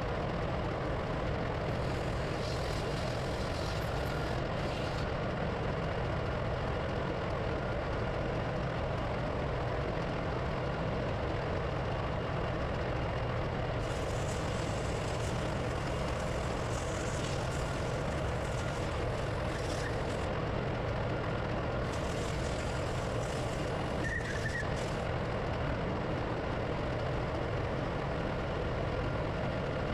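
Steady drone of running marine diesel machinery, such as the neighbouring generator engines, with a few stretches of higher hissing or rattling over it.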